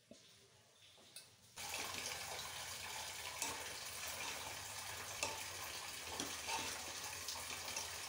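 Soaked daliya and chopped vegetables sizzling in ghee in an aluminium pressure cooker, a steady hiss that starts abruptly about a second and a half in, with light clicks and scrapes of a spoon stirring against the cooker.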